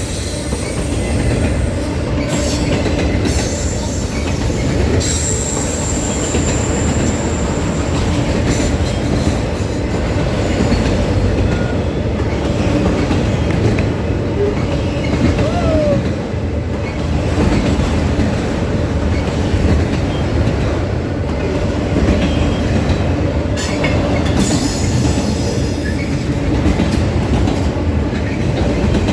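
Train cars rolling past on the rails: a steady loud rumble with wheel clatter and a few sharp knocks, and a brief high wheel squeal about five seconds in.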